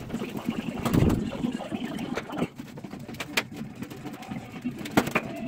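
Irregular knocks and clatter of things being moved around and set down in a garage, with a heavy thump about a second in and a sharp knock near the end.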